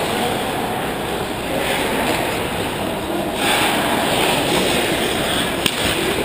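Ice hockey play on a rink: skates scraping and carving on the ice over a steady rink hiss, with one sharp clack of stick or puck a little before the end as play reaches the net.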